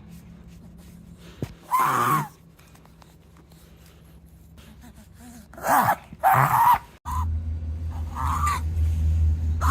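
Long-coat Chihuahua reverse sneezing: forceful snorting gasps drawn in through the nose, four of them, two in quick succession in the middle and the last one fainter. A steady low hum comes in about seven seconds in.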